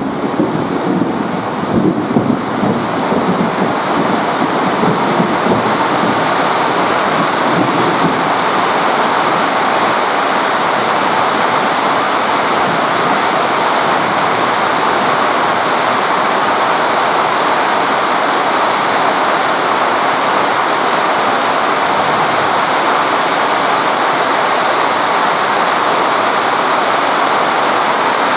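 Very heavy rain pouring steadily, a dense even hiss. During the first several seconds a lower, uneven rumble comes from a JR 205 electric commuter train pulling away from the platform.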